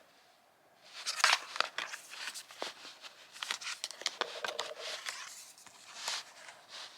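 A CD's packaging being handled and opened: a run of sharp plastic clicks and short rustles, starting about a second in.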